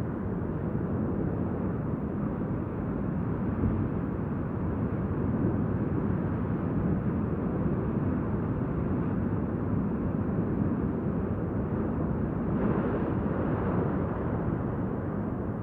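Steady low rumbling noise of an underwater ROV running over the seabed, with no distinct events and a brief rise in hiss near the end.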